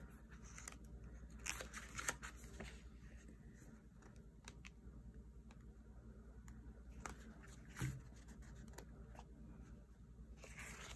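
Faint rustling of paper and scattered light clicks: sticker-book pages and sticker sheets being handled, with one slightly louder tap about eight seconds in.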